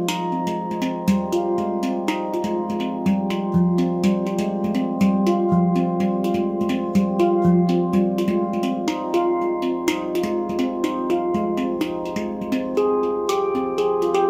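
Handpan in F low Pygmy tuning, made by Nimo Sounds, played with bare hands: a steady stream of quick struck notes ringing into one another, with a low note returning every second or two.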